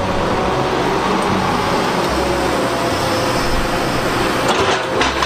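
Crawler excavator with a rock grapple working, its engine and hydraulics making a steady noisy running sound as it handles large boulders; a few sharp knocks come near the end.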